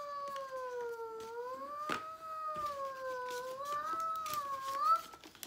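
A girl's voice holding one long, wavering high note for about five seconds without words, rising a little just before it stops.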